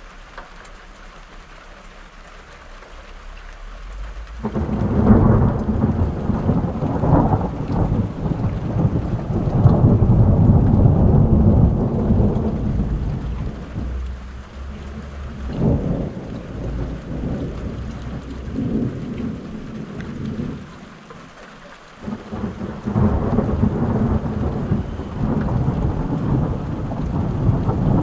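Thunder from a passing storm: a long, loud rolling rumble that breaks in about four seconds in and swells and fades in several waves, drops away briefly a few seconds before the end, then builds again. Rain falls beneath it.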